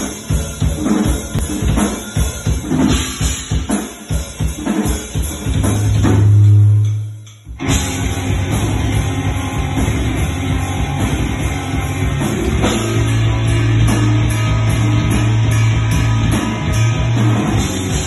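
Heavy metal band soundchecking live: fast drumming on a drum kit at first, then a held low note that swells and cuts off about seven seconds in. The full band, electric guitar and drums, then comes back in and plays on continuously.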